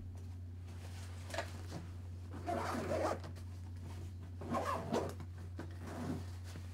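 Faint rustling and handling of gear as objects are put away and picked up, in a few short bursts, over a steady low hum.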